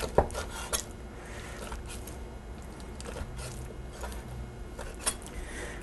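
Chef's knife cutting raw chicken breast into chunks on a wooden cutting board: a few scattered knocks of the blade on the board, the loudest just after the start and about five seconds in.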